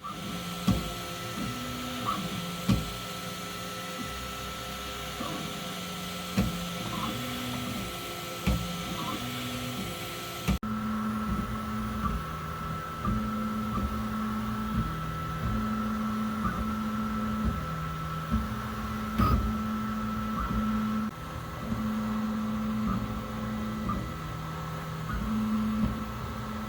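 Ultimaker S3 3D printer running a print: its stepper motors whine at pitches that jump between a few steady notes as the print head moves, over a steady high tone, with scattered small clicks. The sound changes abruptly about ten seconds in.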